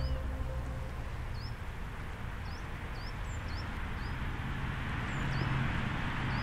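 Small birds chirping outdoors, short high chirps repeated every half second or so, over a hiss of background noise that grows louder in the last couple of seconds. Low sustained music notes fade out early on.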